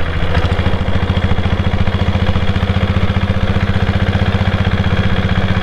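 Royal Enfield Bullet's single-cylinder engine running steadily under way, a fast, even beat.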